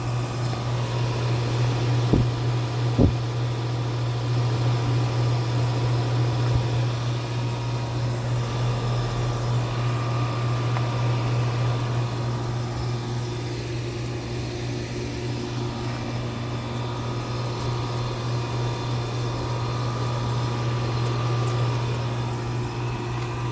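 A 4-ton outdoor air-conditioning unit running: a steady hum of the compressor and condenser fan, with two short knocks about two and three seconds in.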